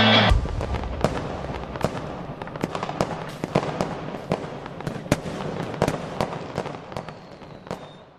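Fireworks going off: an irregular run of sharp bangs and pops over continuous crackling, fading away toward the end.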